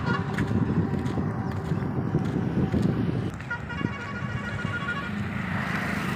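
Main-road traffic with wind rushing on the phone's microphone. A pulsing vehicle horn sounds for about a second and a half past the middle, and a passing vehicle's engine hum comes in near the end.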